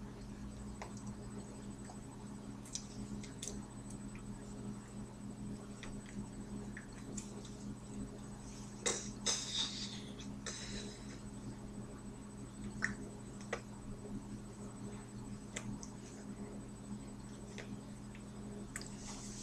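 Faint steady electrical hum with a thin high whine, under scattered soft clicks and rustles of hands and sleeves moving while signing, with a louder rustle about nine seconds in as the hands meet at the chest.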